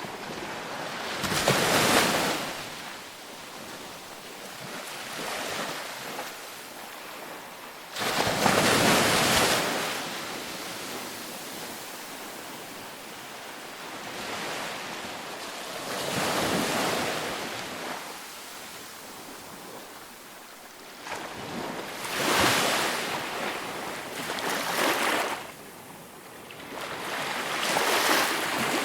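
Waves breaking on a beach, a surge of surf washing in every few seconds, about six in all, between them a steady hiss of water, with some wind.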